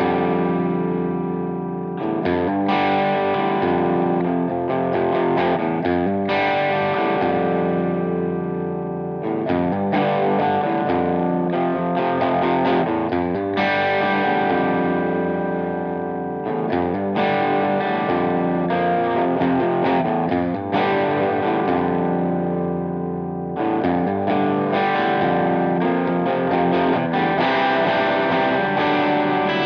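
Edwards Les Paul-style electric guitar, amplified with overdrive, playing a rock riff of ringing chords and single notes. The phrase repeats about every seven seconds, with a short break between repeats.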